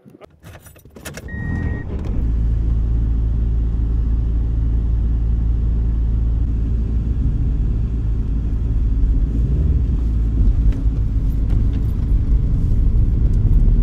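Car keys jangling with a short high beep, then a Ford Escort ZX2's four-cylinder engine starts about two seconds in and runs steadily, heard from inside the cabin, getting a little louder near the end as the car pulls away.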